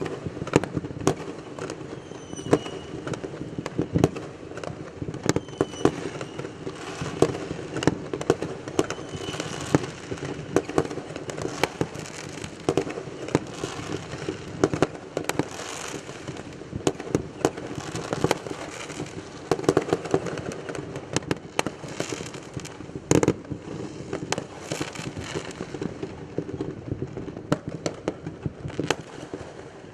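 Fireworks and firecrackers going off all around in a dense, continuous barrage of sharp bangs and crackling, with a few short whistles from rockets in the first ten seconds. One bang about 23 seconds in is the loudest.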